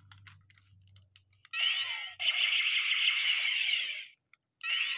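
Power Rangers Mystic Force Magi-Staff toy playing its electronic sound effect through its small speaker: a sweeping zap that turns into a bright, hissing shimmer, starting about a second and a half in and lasting about two and a half seconds. It plays again near the end. Before it come faint clicks of the toy being handled.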